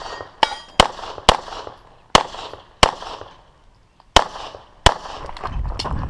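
A semi-automatic pistol firing about seven shots, most of them in quick pairs half a second or so apart: double taps on each target during a timed IDPA stage. Each crack leaves a short echo. Near the end there is a lower rumble and clatter.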